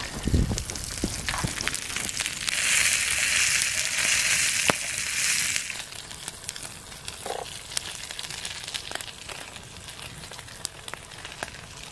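A brook trout sizzling in a frying pan at the edge of a wood campfire, with the fire crackling and popping. The sizzle swells loud from about two and a half seconds in for some three seconds, then settles back to a quieter hiss, with a few low thumps at the very start.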